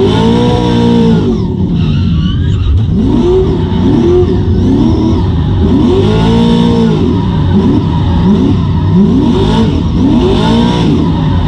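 A 600 bhp Nissan drift car's engine, heard from inside the cabin, revving hard and falling back again and again while the car is driven in drifts. There are long climbs near the start and in the middle, and a run of quicker rev rises and drops toward the end.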